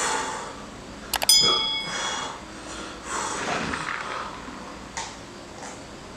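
Mouse clicks and a bell ding from a subscribe-button sound effect, about a second in, over heavy breathing as someone blows out to cool a mouth burning from hot-wing sauce; near the end, sipping from a plastic cup.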